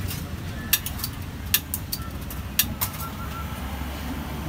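About eight sharp metal clicks and clinks, in quick groups of two or three, from cooking gear at a wok on a gas burner, over a low steady rumble.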